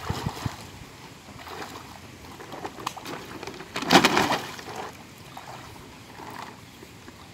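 Pond water sloshing and splashing around people wading chest-deep, with one louder burst of splashing about four seconds in.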